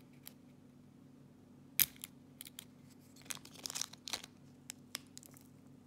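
Clear packaging tape being peeled off a padlock in short, crackling tears, with one sharp click a little under two seconds in.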